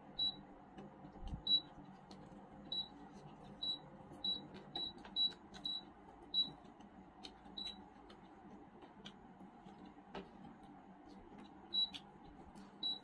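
Close-up eating noises: chewing a bite of fried chicken with short, sharp wet mouth clicks. The clicks come about two a second for several seconds, then a few more near the end, over a low steady hum.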